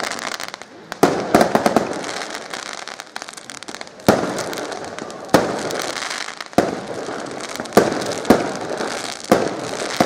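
Fireworks exploding in a display: about seven sharp bangs a second or more apart, with a rapid flurry of cracks about a second in, and steady crackling and hissing from the bursts between the bangs.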